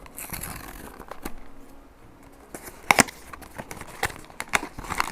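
Blind-box packaging being handled and opened: crinkling and rustling with several sharp clicks, the loudest about three seconds in.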